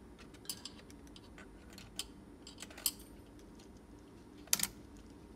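Scattered small clicks and clacks from the opened Sony TC-FX707R cassette deck's transport and switches as it is worked by hand to make it run, the loudest double click about four and a half seconds in.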